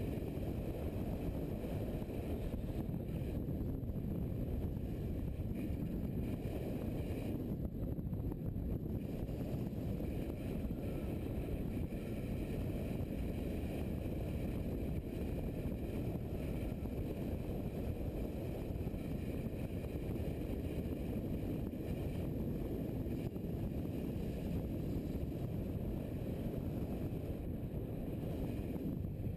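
Steady low rush of wind on the microphone of a camera riding on a moving motorcycle, with the bike running underneath at cruising speed.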